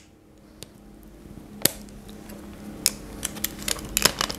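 Hard plastic parts of a Transformers Studio Series Starscream action figure clicking as they are twisted and snapped into place: a few separate sharp clicks, then quicker clicks near the end.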